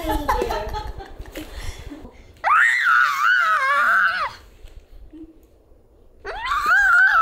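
A baby letting out two loud, high-pitched squeals of about two seconds each, the pitch wavering up and down; the second one starts about a second before the end.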